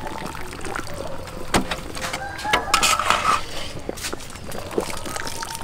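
Chickens clucking in the background, with a few sharp metallic clinks of a mesh strainer and tongs against the pot as boiled pork is lifted out.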